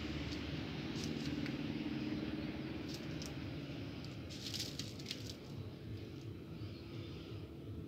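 Steady low background rumble with a faint held hum, broken by a few light clicks about a second in, about three seconds in, and a cluster of them about four and a half to five seconds in.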